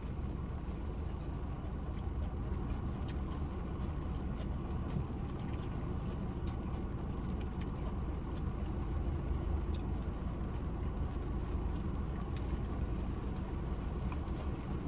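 Heavy rain falling: a steady hiss and low rumble, dotted with scattered light ticks of drops.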